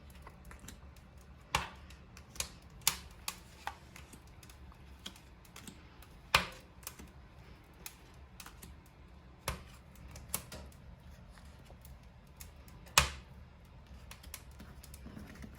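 Playing cards being counted off a deck one at a time and laid down: irregular sharp clicks and snaps, a few much louder than the rest.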